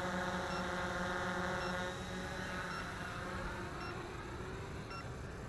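Quadcopter drone hovering, its propellers giving a steady multi-tone hum that grows fainter about two seconds in. Faint short high beeps repeat about once a second.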